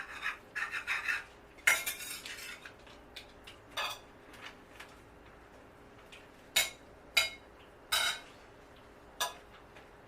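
Spoon clinking and scraping against a plate while eating, in scattered sharp clicks with short scraping runs in the first few seconds and a handful of separate sharp clinks in the second half.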